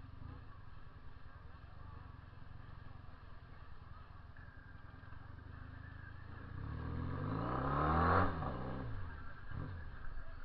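Honda CB 400 II parallel-twin motorcycle approaching under acceleration, its engine note rising in pitch and loudness from about six seconds in to a peak near eight seconds, then dropping quickly as it passes and moves off. Before that, only faint background noise.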